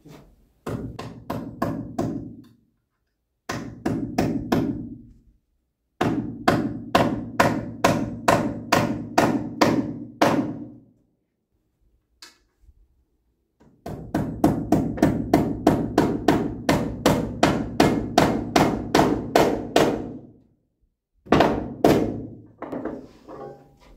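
Nails being hammered by hand through metal joist hangers into an LVL rim board: runs of quick, evenly spaced hammer blows, about two to three a second, each with a short metallic ring, in four bursts with pauses between.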